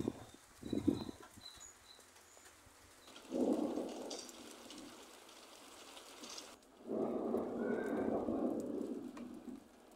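Thunder rumbling in two rolls: a short one about three seconds in and a longer one about seven seconds in. Each starts suddenly and dies away, after a few dull thumps near the start.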